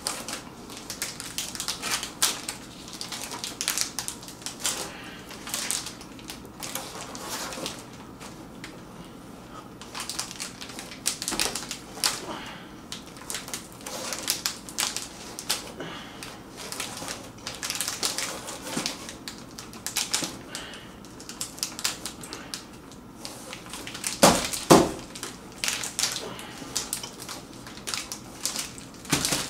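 Crinkling and crackling of a box of vanilla wafers and its plastic wrapping being opened and rummaged, in quick irregular bursts, with crunchy wafer-chewing mixed in. There is a louder burst near the end.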